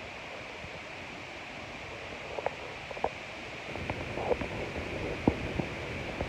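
Tropical-storm wind and surf: a steady rush of wind and breaking waves, with gusts buffeting the microphone in low rumbles and pops that build from about halfway through.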